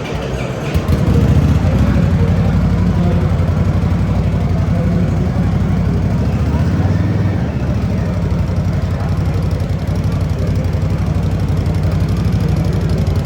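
Indian Scout V-twin motorcycle engine running steadily at idle through its exhaust. It gets louder about a second in, then holds an even, deep note.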